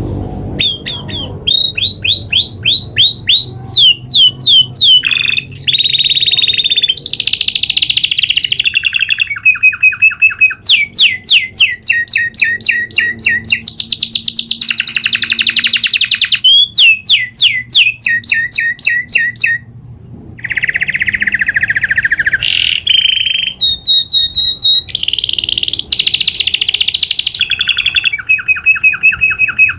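Domestic canary singing a long rolling song: phrase after phrase of fast repeated notes and trills, some sweeping up or down, with a short break about twenty seconds in.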